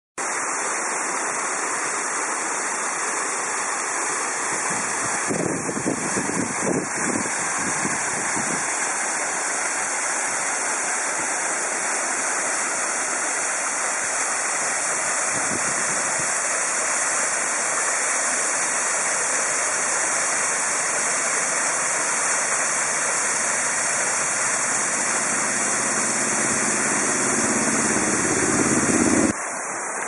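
Waterfall: a steady, unbroken rush of water falling down a rock face. It drops abruptly to a quieter rush just before the end.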